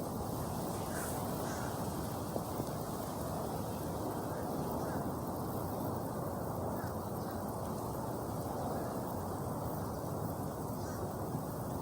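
Honeybee swarm buzzing, a steady dense hum with no breaks.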